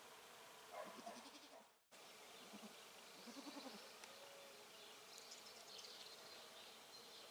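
Faint bleating of a goat: two short, wavering calls, about one second and about three seconds in.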